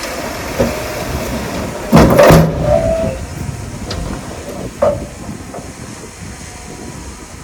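Heavy construction machinery running with a steady low rumble. About two seconds in there is a loud, half-second burst of noise, and a short, sharp knock comes near five seconds.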